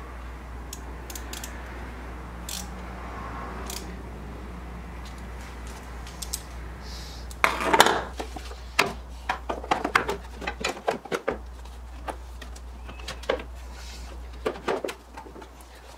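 Clatter of hand tools and plastic engine-bay parts: a socket wrench and the air intake duct being handled. A loud knock about halfway in starts a run of irregular clicks and knocks; before that only a low steady hum.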